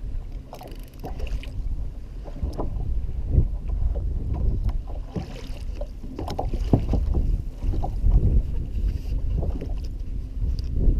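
Water lapping against a fishing kayak's hull and wind buffeting a head-mounted microphone, a steady low rumble, with scattered knocks and clicks from handling the rod and gear.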